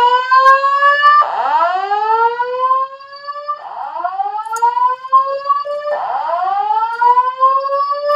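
Voice evacuation fire alarm speakers sounding a whoop alert tone: a loud tone that sweeps upward in pitch for about two and a half seconds, drops back and repeats, about four sweeps in all. The tone cuts off abruptly at the end.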